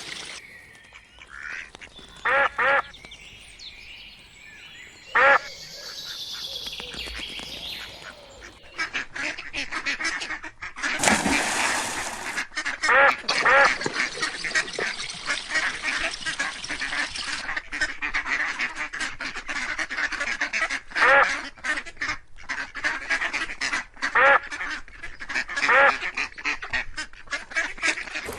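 Ducks quacking, loud calls coming singly or in quick pairs and runs every few seconds. From about a third of the way in they sit over a busy, crackling noisy background, with a brief loud rush of noise near the middle.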